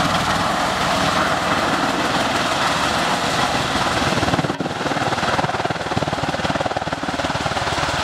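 Bell Boeing MV-22 Osprey tiltrotor in helicopter mode, its two big proprotors beating with a rapid, steady throb. There is a momentary drop in level about halfway through.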